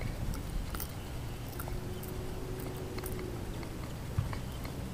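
Hands unhooking a lure from a largemouth bass's mouth: scattered small clicks and rustles of the hooks and fish being handled, over a low rumble.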